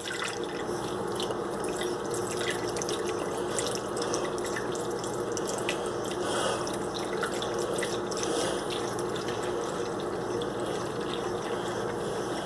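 Water running steadily from a tap into a cup, filling it.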